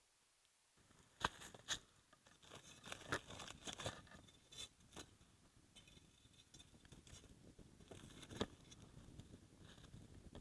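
Faint, irregular clicks, taps and light scrapes of hands handling food and utensils during cooking preparation, with a few sharper knocks.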